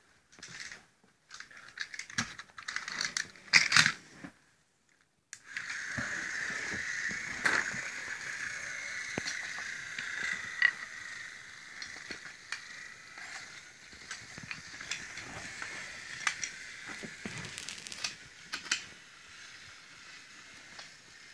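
Scattered knocks and clicks of the wooden toy track and train being handled, then from about five seconds in the small geared electric motor of a battery-powered toy locomotive running with a steady whine and a gear rattle, with clicks over it.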